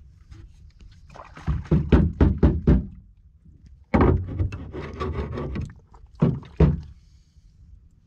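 Handling-the-catch knocks and thuds: a quick run of about six knocks, a longer rough scraping stretch about four seconds in, then two more sharp thumps.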